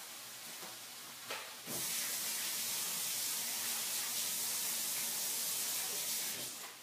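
Kitchen sink faucet running: turned on abruptly about two seconds in, a steady hiss of water into the sink, then shut off near the end.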